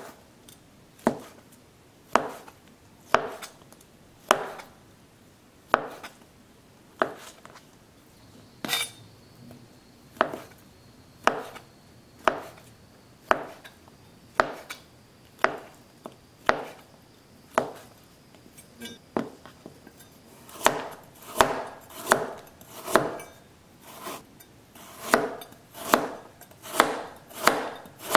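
Chef's knife slicing fried tofu on a plastic cutting board, each stroke a sharp tap on the board, about one a second. About two-thirds of the way through the cuts come quicker and louder, about two a second, as a carrot is sliced.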